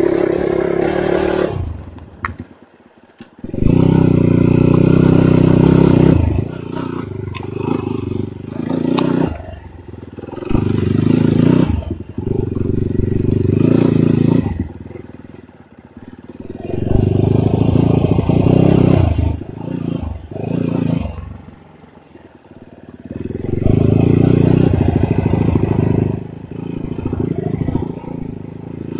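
Enduro motorcycle engine revving hard in repeated bursts of throttle, each lasting two to three seconds, with the engine dropping back sharply between them, as on a climb over rough ground.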